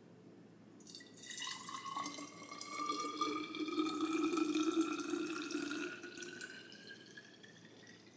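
Celery juice pouring from a plastic container into a glass bottle, starting about a second in. The pitch rises steadily as the bottle fills.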